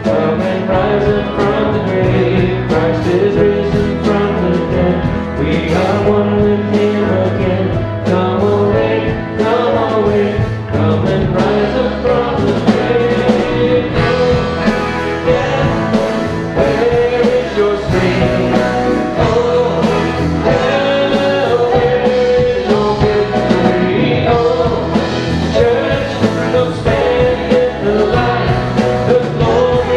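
A live band playing a song: a man singing lead over strummed acoustic-electric guitar, bass guitar and drum kit with a steady beat.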